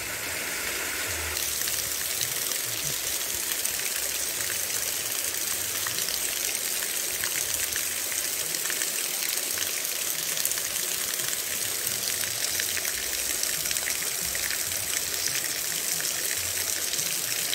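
Small stream cascading over a low weir and down rocks: a steady rush of falling, splashing water.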